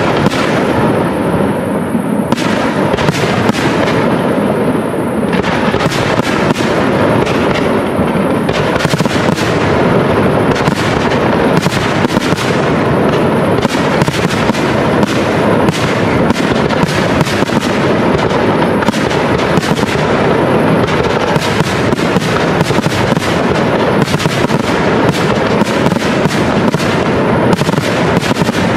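Aerial fireworks shells bursting in rapid, overlapping succession: a dense barrage of bangs and crackling that grows almost continuous after the first several seconds.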